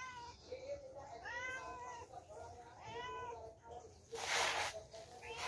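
Cat meowing three times, each call rising and then falling in pitch, followed by two short, loud bursts of hiss-like noise near the end.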